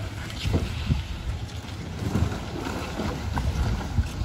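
Wind buffeting the microphone in uneven gusts, a heavy low rumble with a few sharper surges.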